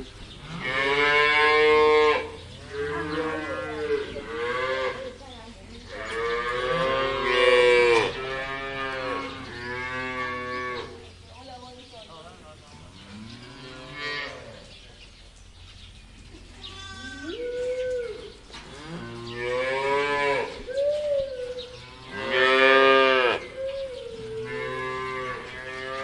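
Cows mooing, one long moo after another, each lasting a second or two. The moos are loudest near the start and again later on, with a quieter spell of softer calls in the middle.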